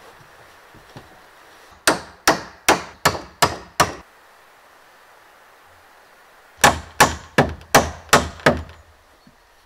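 Hammer blows on the wooden rafters of a timber cabin frame: two runs of six sharp strikes, about two and a half a second. The second run begins about six and a half seconds in.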